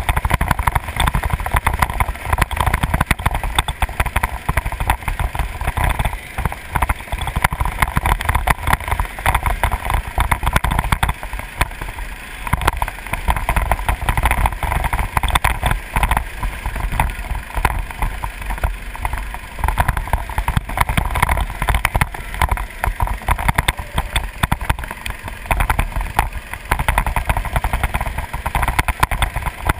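Go-kart engine running at racing speed, heard close up with heavy wind buffeting on the onboard microphone.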